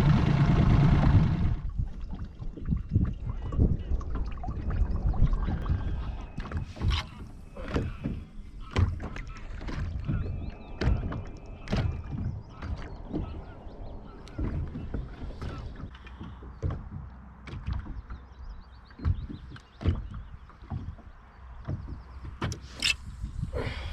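A boat motor running, which cuts out about a second and a half in. After that come irregular knocks and bumps against the hull of a small plastic boat, with water sounds beneath.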